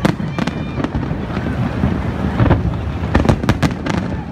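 Aerial fireworks going off: sharp bangs and cracks over a steady low rumble of bursts. A few bangs come near the start, and a denser cluster comes a little after three seconds in.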